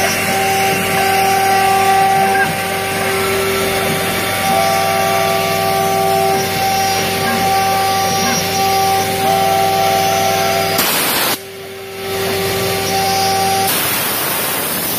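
CNC router spindle running at speed with a steady whine, the bit cutting out a sign's letters; the sound dips briefly about eleven seconds in.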